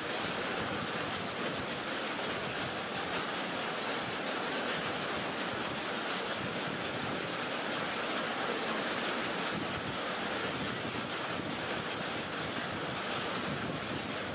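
Heavy rain falling steadily on a lake and the leaves of the trees around it, an even, unbroken hiss.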